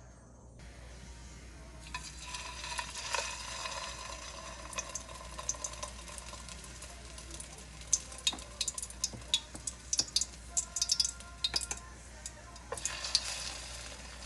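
Food sizzling in oil in a frying pan, starting about two seconds in, with sharp clicks and taps of a cooking utensil against the pan, most of them between about 8 and 12 seconds in.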